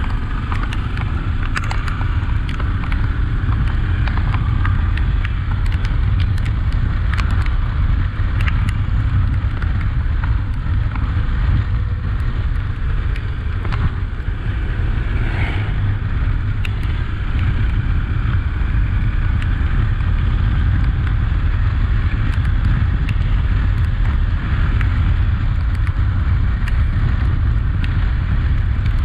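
Honda XRE 300 single-cylinder motorcycle running steadily while riding, heard under a heavy low wind rumble on the microphone, with scattered sharp ticks.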